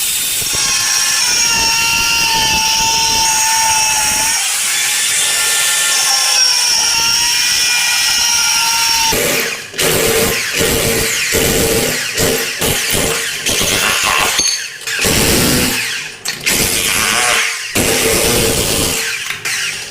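Electric power tool running with a steady whine for about nine seconds, then started and stopped again and again in short bursts.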